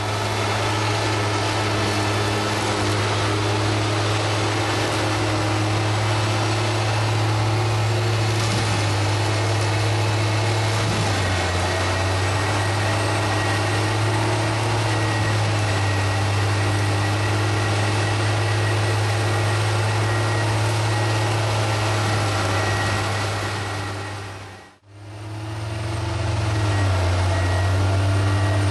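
Heavy machine's engine running steadily with a deep, even hum, typical of a carrier powering a rotary soil-milling attachment. The sound fades out and back in about 25 seconds in.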